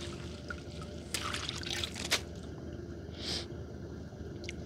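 Water splashing and trickling for about a second, ending in a sharp knock, with a short hiss of water a second later; a boat engine hums steadily underneath.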